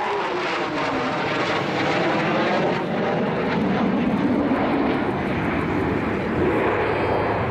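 JASDF F-15 Eagle's twin turbofan jet engines running loud and steady as the fighter banks through a display manoeuvre. A whine in the roar falls in pitch in the first second or so.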